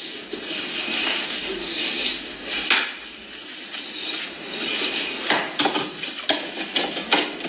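Cutlery and dishes clinking and scraping, with many short sharp taps, more frequent in the second half.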